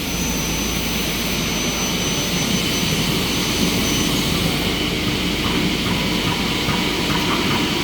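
Double-head CNC mitre saw (PDS600DL) running, its two 5 hp saw motors spinning 600 mm blades with a loud, steady, even machine noise during a short-piece cutting test.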